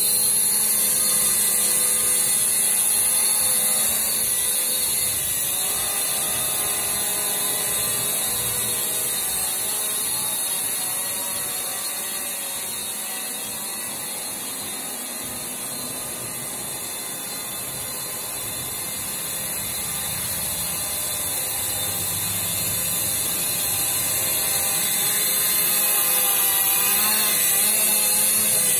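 Holy Stone HS120D quadcopter's motors and propellers buzzing with a steady high whine as it flies low. The sound fades as the drone moves away and grows louder again near the end, its pitch wavering as it manoeuvres.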